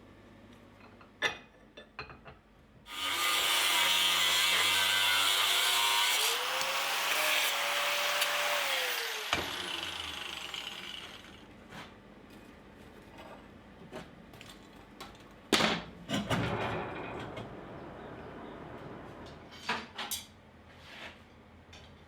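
An electric power tool running for about six seconds, its pitch rising slightly before it switches off and winds down, followed by scattered knocks and clicks of metal being handled.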